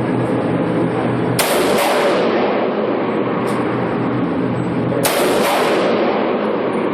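Two gunshots from a long gun, about a second and a half in and again about five seconds in, each followed about half a second later by a second sharp report.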